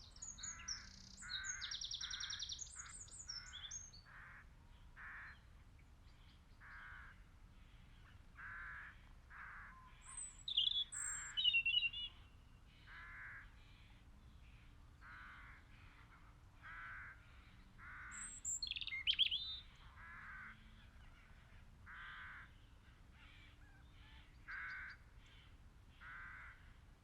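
Crows cawing, faint, in a long series of short caws about one a second, with smaller birds chirping a few times in between.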